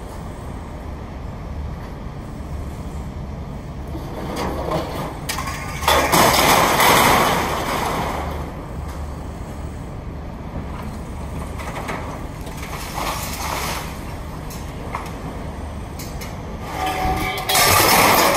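Demolition excavator's diesel engine running steadily. Two louder rushes of noise, each about two seconds long, come about six seconds in and again near the end.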